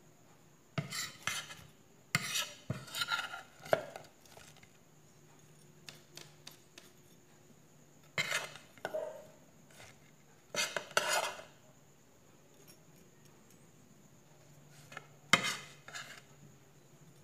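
A metal spoon scraping and clinking against a plate while scooping up sliced hotdogs, in about five short bursts with pauses between.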